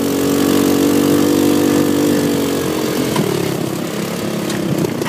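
Engine of a small Twister off-road buggy running while driving, holding a steady pitch, then dropping in pitch and turning rougher about three seconds in.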